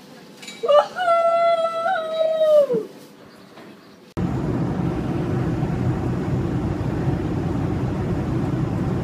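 A single high note held for about two seconds, sliding down as it ends. About four seconds in it cuts to steady airliner cabin noise, the even rush of the aircraft in flight.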